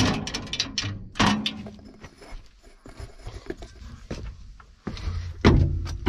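Metal toggle latches clacking and a sheet-metal engine side panel thudding shut on a small bulldozer, a run of sharp knocks and clicks, the loudest at the start and about a second in. Near the end a louder low rumble sets in.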